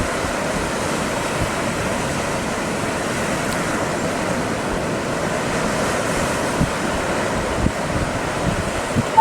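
A steady rush of waves and wind, with wind buffeting the microphone in a few low bumps near the end.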